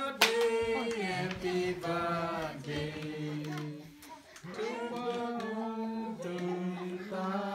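A group of people singing together in long, held notes, with a short break about four seconds in.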